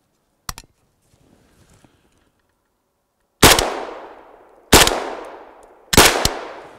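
Three rifle shots from a 5.45x39 AK-74, about a second and a quarter apart, each followed by a long echo dying away through the woods. A single sharp click comes about half a second in, before the shots.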